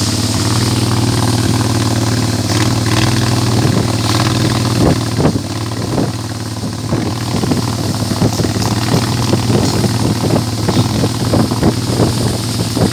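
Small motorboat's engine running steadily under way. From about five seconds in, frequent short, irregular thumps join it.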